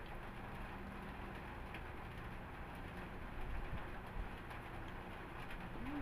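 Quiet steady room hum and background noise, with a few soft knocks and handling sounds as a child breaks up and eats a chocolate fudge bar on a plate.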